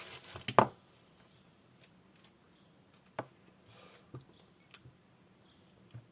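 Craft-handling noises: a short burst of rustling and sharp clicks in the first second, then a few single clicks spaced about a second apart.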